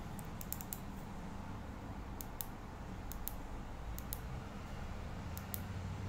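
Small sharp clicks from the buttons of an Astrolux K1 keychain flashlight being pressed to switch it on and cycle its modes, about a dozen clicks in short runs, over a steady low rumble.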